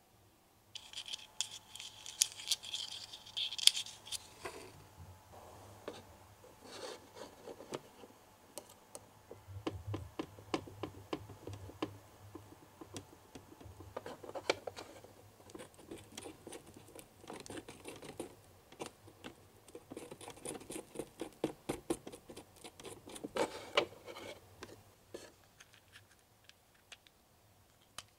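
Miniature plastic toy kitchen pieces being handled: a scratchy rustle about a second in, then many small clicks and scrapes of a tiny plastic spoon stirring in a small plastic bowl.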